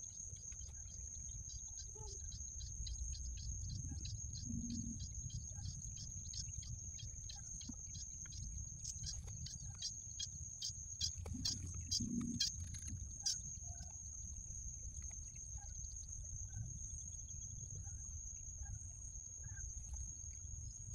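Pond-side insect and bird ambience: a steady high-pitched insect drone with a fast run of ticking calls, about four a second, that fades out about two-thirds of the way through, over a low rumble. A few sharper clicks come near the middle.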